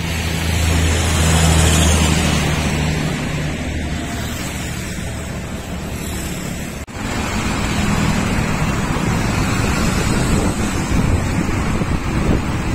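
Wind buffeting the microphone over the steady noise of road traffic, with a low engine hum in the first few seconds.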